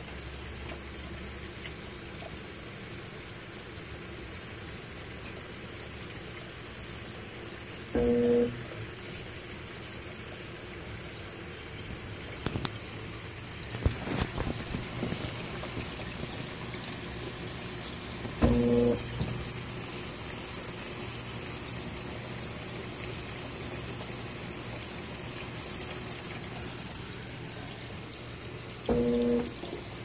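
Consul 16 kg top-load washing machine filling with water while its agitator churns the load: a steady rush of water, with a short hum about every ten seconds.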